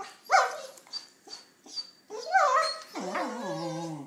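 Two corgis play-fighting, giving high yips and thin whines, with a longer, lower cry falling in pitch near the end.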